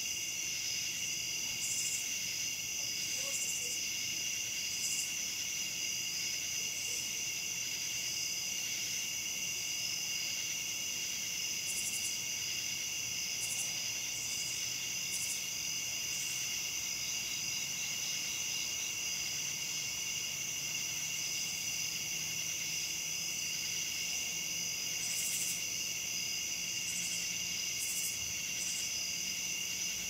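Steady night chorus of crickets and katydids (cha chas) singing together, with short raspy insect calls breaking in every few seconds.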